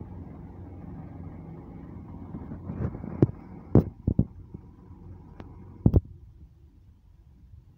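Boom truck engine running steadily to power the crane, broken by a few sharp knocks between about three and six seconds in. The engine sound falls away near the end.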